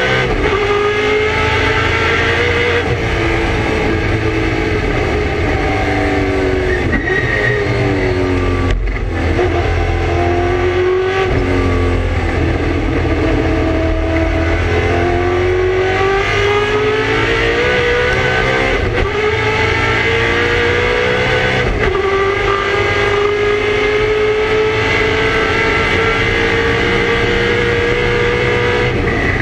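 Ford Mustang Touring Car Masters race car's V8 engine at racing speed, heard from inside the cockpit. It revs up and drops back again and again through the gears and corners, then pulls in one long steady climb near the end.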